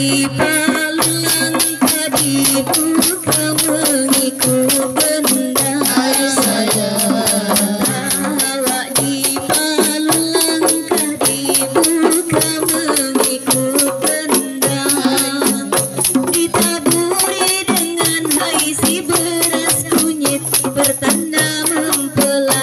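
Group of rebana frame drums beaten by hand in a quick, even rhythm, with a woman singing over them through a microphone.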